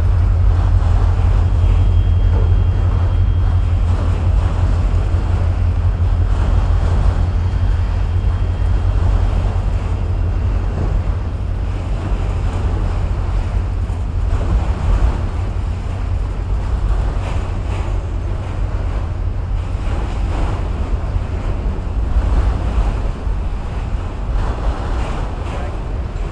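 Freight train of enclosed autorack cars rolling steadily past: a continuous low rumble and clatter of steel wheels on rail, with wind noise on the microphone.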